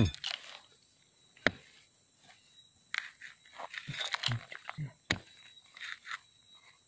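Scattered light knocks and gravel scrapes, as a steel rebar and feet shift on stony ground. Near the end the rebar is pushed into the gravel beside a grey stone.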